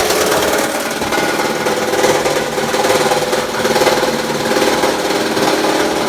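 Nelmor 2 hp plastic granulator running, its motor and two 9-1/2-inch blades turning with a steady hum and a rapid rattle.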